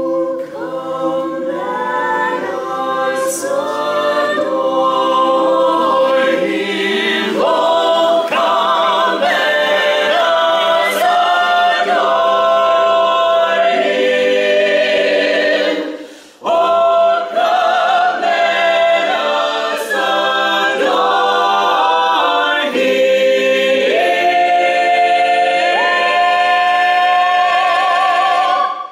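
Mixed-voice a cappella choir of carolers singing a holiday song in harmony, with a brief break between phrases about halfway through and long held notes climbing near the end.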